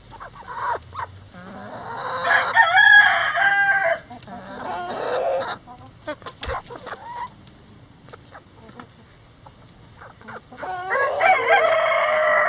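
A rooster crowing twice, a long call about two seconds in and another near the end, with hens clucking and making short calls in between.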